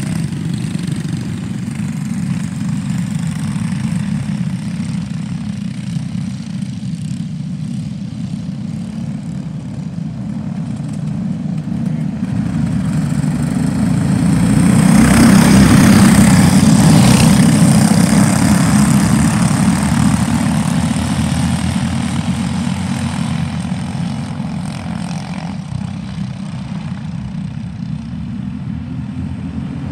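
A pack of Briggs & Stratton LO206 single-cylinder four-stroke kart engines running together, the drone swelling to its loudest about halfway through as the field passes close under the green flag, then fading as the karts pull away.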